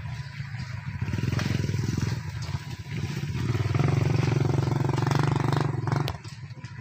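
A small engine running at a steady pitch, growing louder about a second in and dropping away abruptly about six seconds in.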